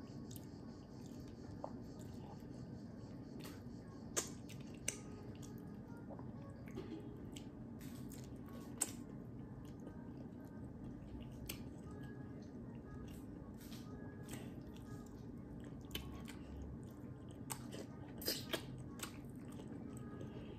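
Close-up eating sounds of a person chewing soft semovita swallow and ofe nsala (Nigerian white soup), with scattered sharp wet mouth clicks and smacks. The loudest smacks come about four seconds in, near nine seconds, and twice around eighteen seconds. A steady low hum runs underneath.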